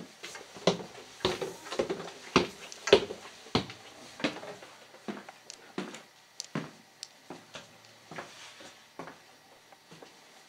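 Footsteps on wooden stairs, a steady run of sharp thuds about two a second. They are loudest over the first few seconds of the climb, then turn into fainter steps that die away.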